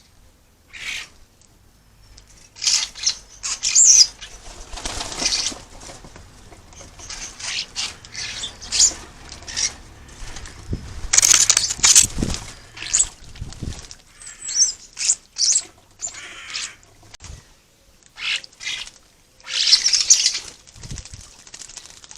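A flock of common starlings at a bird bath: irregular bursts of wing-flapping and splashing as they bathe, mixed with short chirps and squawks. The bursts begin about two seconds in and come and go with brief pauses.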